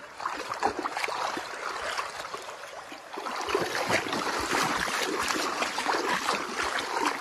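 Feet wading through ankle-deep seawater, with small splashes and sloshing at each step. The splashing grows louder about halfway through.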